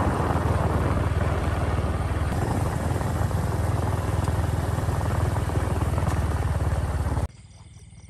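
Small motorcycle engine running at speed with a fast low pulsing, mixed with wind rush. It cuts off suddenly near the end, leaving faint high chirring.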